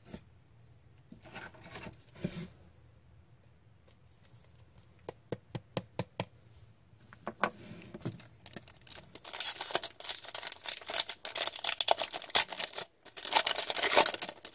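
Trading cards being handled and slid against each other: a few light clicks, then a denser stretch of rustling and scraping over the last few seconds.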